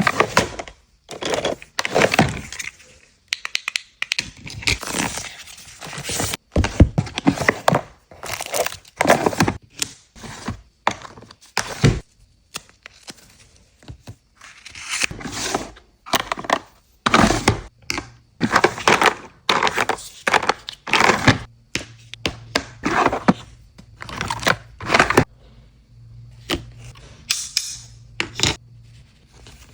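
Gift packaging being unwrapped and handled: irregular crinkling and tearing of wrapping, with small knocks and clicks as items are picked up and set down.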